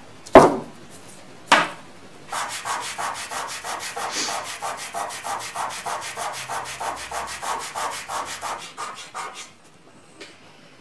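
Two sharp knocks about a second apart, then a fingertip rubbing powdered earth into paper in quick, even, scratchy strokes, about six a second, for some seven seconds, stopping near the end. The earth is being worked into the paper to make an earth-colour swatch.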